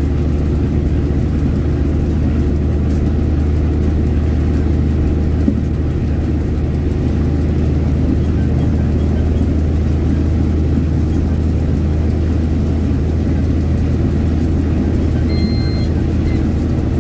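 Steady low drone of a diesel train's engine running under way, heard from the front of the train. A short high beep sounds near the end.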